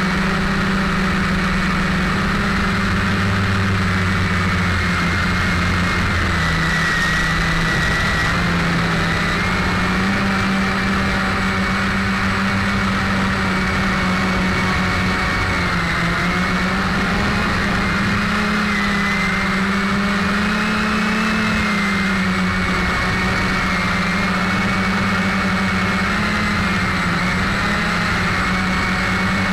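Quadcopter's electric motors and propellers whining steadily, heard from the aircraft itself. The pitch wavers gently up and down as the throttle changes in flight.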